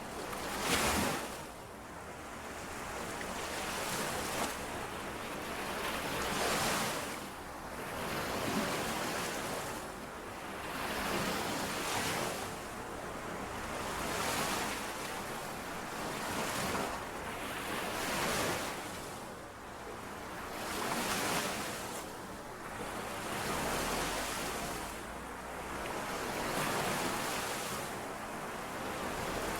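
Small lake waves washing in and out on the shore, one swell of splashing hiss about every two seconds.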